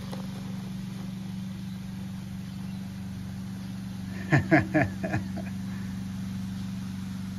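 A steady low engine-like hum, with faint liquid pouring through a mesh strainer. About four seconds in, a few brief voice-like sounds.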